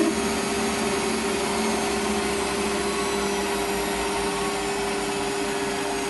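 Metal lathe running steadily, a hum of several steady tones over machine noise, as it spins an offset workpiece in a four-jaw chuck whose unbalanced weight makes the machine shake.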